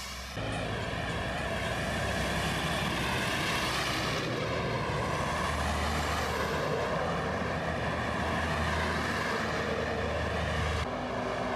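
Road traffic: articulated lorries with diesel engines passing close by, a steady rush of engine and tyre noise. The sound changes abruptly about four seconds in and again near the end, where the recording cuts.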